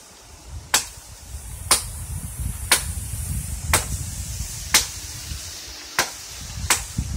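Machete blows chopping into a tree trunk, seven sharp strikes about one a second, with a low rumble underneath.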